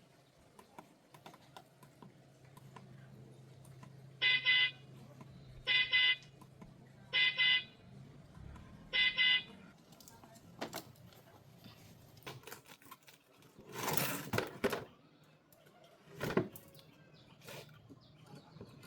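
Mini car's electric horn sounding four short beeps, about a second and a half apart, over a faint low hum. It is the kind of test beeping done to check a repaired horn. A brief noisy clatter follows a few seconds later.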